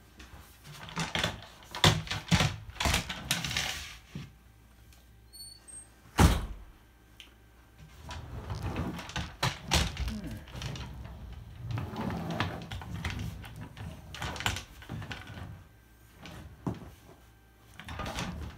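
Wooden boards and a wooden frame of a homemade workstation knocking and scraping as they are handled and set in place: a string of knocks and scrapes, the loudest a single heavy thump about six seconds in.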